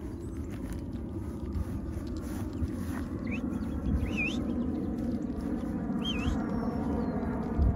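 Wind rumbling on a phone microphone during an outdoor walk. A bird gives three short, wavering chirps about three, four and six seconds in, and a sharp low thump comes near the end.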